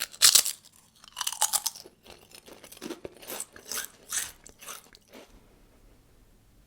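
Close-miked eating of chicken lyulya kebab and vegetables: two loud crunchy bites, near the start and about a second in, then chewing at about two strokes a second that stops a little after five seconds.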